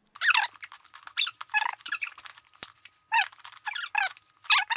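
Metal stirrer scraping around the inside of a small tin can of clear varnish, giving repeated bursts of short high squeaks that slide down in pitch, several to a second.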